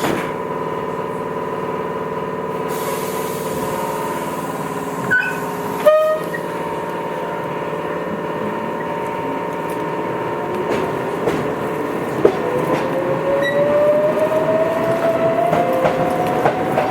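Tobu 8000 series electric train heard from inside the car, pulling away: a steady electrical hum, two sharp clicks about five and six seconds in, then from about twelve seconds a traction-motor whine rising steadily in pitch as the train gathers speed.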